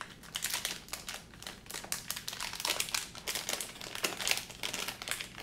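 A small plastic packaging bag crinkling as hands squeeze and work it open, a continuous irregular crackle.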